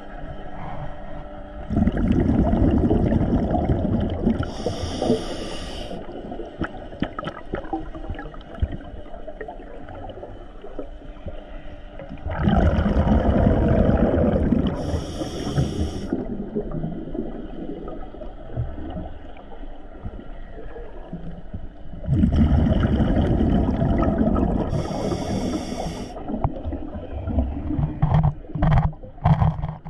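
A scuba diver breathing through a regulator, about one breath every ten seconds: each exhale is a low bubbling rumble of about three seconds, followed by a short hiss of the regulator on the inhale. A few sharp clicks near the end.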